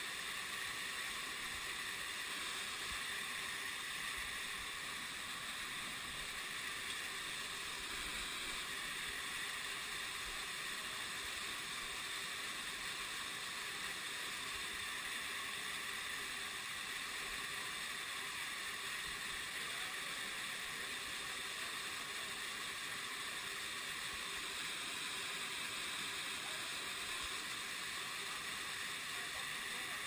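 Waterfall running in a steady rush of falling water.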